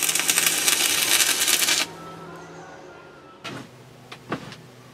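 Stick-welding arc from a thin 2 mm electrode, crackling and spitting steadily, then cutting off abruptly about two seconds in as the arc is broken. A low hum and a couple of short knocks follow.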